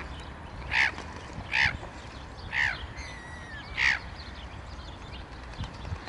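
Harsh, caw-like bird calls repeated about once a second, five in all, stopping about four seconds in. A thin, falling whistle sounds between the third and fourth calls.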